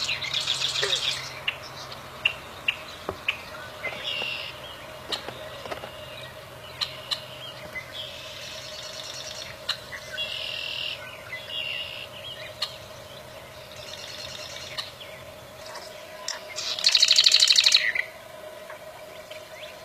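Prinia (prenjak) calling: repeated bouts of rapid buzzy trills with short sharp chips between them, the loudest trill about 17 seconds in. A faint steady hum runs underneath.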